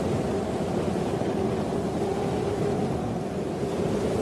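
A steady low rumbling noise with a faint hum running through it, a sound effect between scenes of a radio play.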